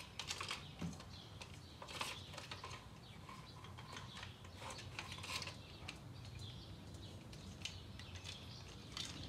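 Faint, irregular metallic clicks and clinks as the timing chain and its guide parts are worked loose and lifted out of a BMW N20 engine.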